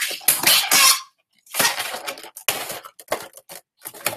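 Latex 260 modelling balloons being twisted and worked by hand while the excess piece is broken off, rubbing and rustling against each other. The noise is dense for about a second, drops out briefly, then comes in shorter bursts.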